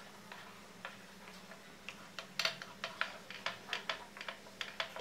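Wooden spatula stirring thick spinach gravy in a metal pan, giving sharp irregular clicks and knocks. The clicks are sparse at first, then come louder and quicker, about three or four a second, from about two seconds in.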